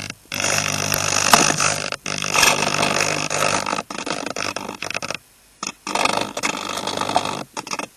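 Steady hiss and buzz with several sudden, brief dropouts, one deeper gap about five seconds in: the audio channel of an analog FPV video downlink.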